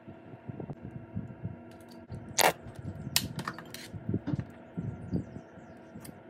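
Sharp clicks and soft knocks from handling a glass dropper and small glass bowl, the loudest click about two and a half seconds in, over a steady faint hum.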